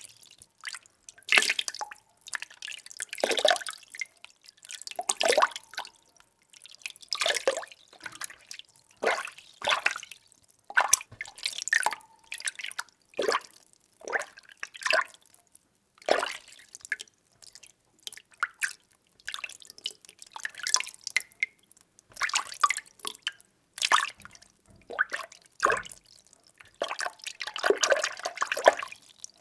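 Water being stirred in a container: short sloshing, splashing strokes, roughly one or two a second, with brief quiet gaps between them.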